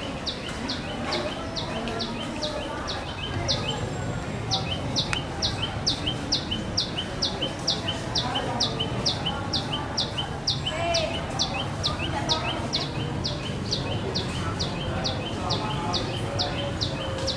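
A bird calling in a fast, even series of short high chirps, about three to four a second, without a break, over a low murmur of distant voices.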